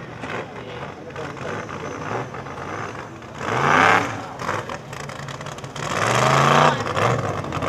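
Formula Offroad hillclimb buggy's engine revving hard under load on a steep sand climb. It surges up and down in pitch twice, loudest about halfway through and again near the end.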